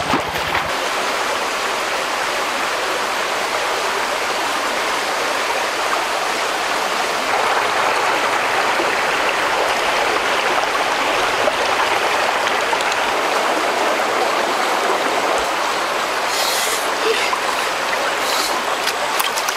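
Shallow rocky stream running over stones: a steady rush of flowing water.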